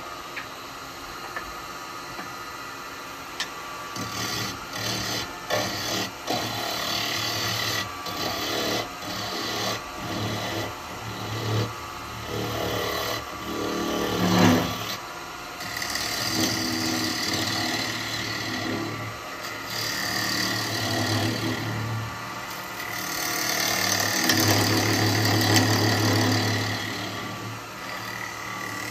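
A wood lathe turning a piece of alder while a gouge cuts across its end face. The cutting noise swells and eases as the tool is fed in and eased off, and is louder in the second half.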